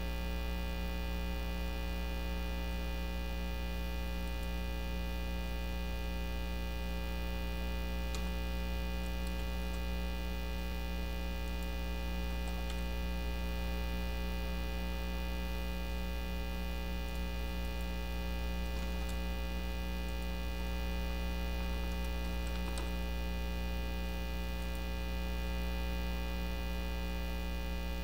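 Steady electrical mains hum with a stack of overtones, unchanging throughout, with a few faint clicks of keys being typed.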